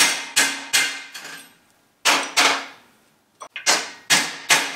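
Hammer striking a steel punch to drive drilled-out rivets from the sections of a sickle-bar mower knife. About eight sharp metallic blows come in quick groups of two to four, some leaving a brief ring.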